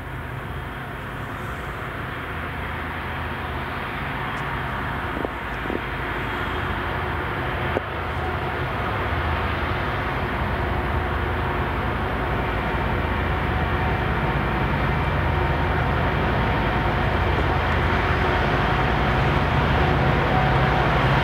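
Union Pacific diesel-electric freight locomotives, three at the head of the train, running through and out of a tunnel: a steady low engine rumble that slowly grows louder as they approach. Two brief knocks sound about five and eight seconds in.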